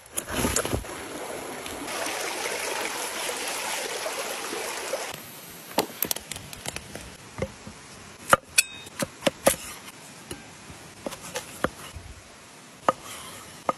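Sticks rustling and snapping as they are gathered, a steady hiss for about three seconds, then a string of sharp knocks and chops of wood and a knife striking a wooden cutting board.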